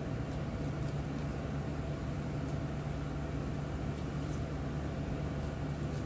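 Steady low mechanical hum with a faint steady tone above it, broken by a few faint light clicks.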